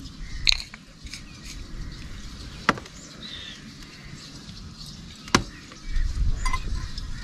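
Steel bowls and plates clinking as food is handled, with a few sharp clinks spread through, two of them louder than the rest. A low rumble comes in near the end.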